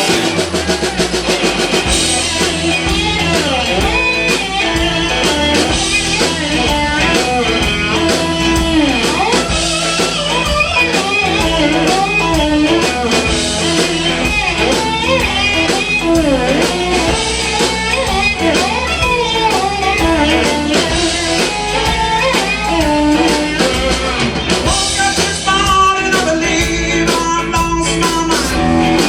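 Live blues-rock band playing: electric guitar lead lines with bends over a drum kit beat, an instrumental stretch with no singing.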